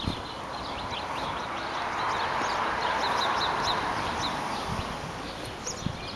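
Small birds chirping in quick, short, high notes throughout, over a rushing noise that swells up and fades away again in the middle.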